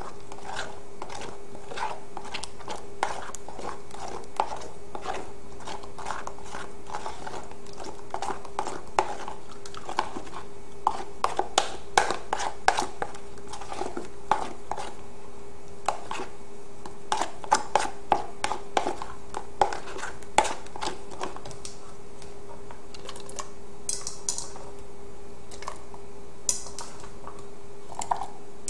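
A spoon scraping and tapping against a plastic strainer while pressing blended green-juice pulp through it into a bowl: irregular clicks and knocks, thickest through the middle.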